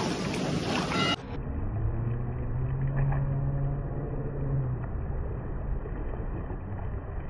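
Feet wading through shallow, fast-flowing river water over rock, the water rushing around the legs. A low steady motor hum sounds for a few seconds in the middle.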